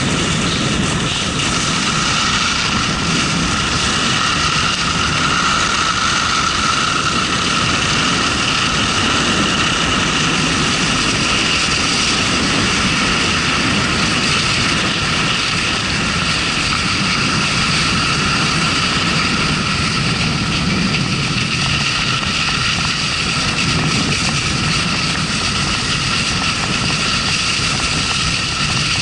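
Steady loud rush of wind on the microphone of a camera carried down a ski run, mixed with skis sliding over packed snow.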